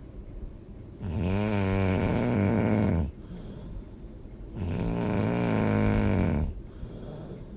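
A person snoring loudly: two long, rattling snores about three and a half seconds apart, each with a wavering pitch, and quieter breathing between them.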